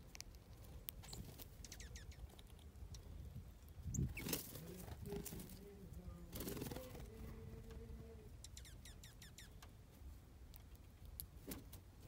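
Small songbirds chirping faintly in short, quick clusters of high notes over a low outdoor rumble. About four seconds in there is a thump, followed by a low steady hum for a few seconds.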